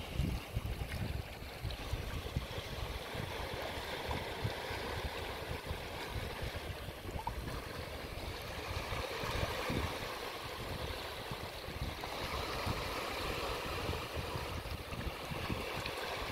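Shallow seawater washing and trickling among rocks, with wind rumbling on the microphone.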